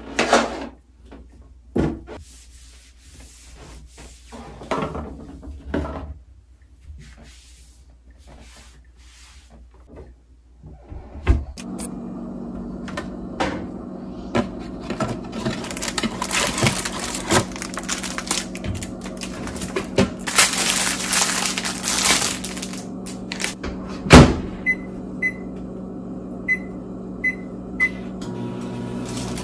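Cabinet doors and items knocking as they are handled, then a microwave oven running with a steady hum from about eleven seconds in. Clatter and one loud thump come a little before the end, followed by about five short keypad beeps.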